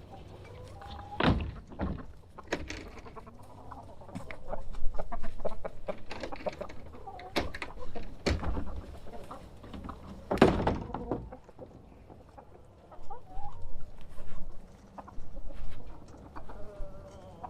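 Chickens clucking, with scattered knocks and thuds; the loudest knocks come about a second in, about seven seconds in and about ten seconds in.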